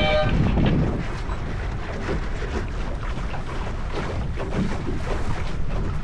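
Wind buffeting the microphone and water washing along a sailboat's hull, a steady rushing noise. A race-signal horn tone cuts off right at the start.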